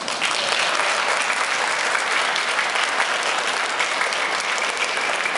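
Audience applauding, the clapping breaking out all at once and holding steady.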